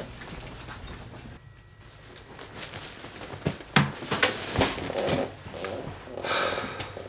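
Plastic shopping bag rustling and knocking as it is set down on a desk, then a person settling into a leather office chair.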